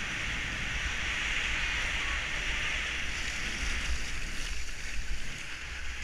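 Skis sliding over groomed snow in a steady hiss, with wind rumbling low and unevenly on the GoPro's microphone.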